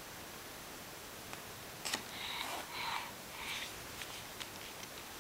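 Quiet room with low hiss; about two seconds in, a sharp click, then three short, soft, breathy sounds from a toddler, like sniffs or whispered breaths, and a few faint ticks.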